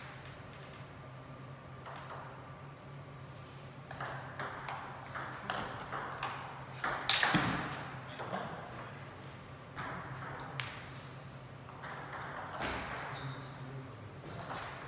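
Celluloid-style table tennis ball ticking sharply off the table and bats in irregular clicks, with a rally starting near the end. Voices carry in the hall, and there is a steady low hum.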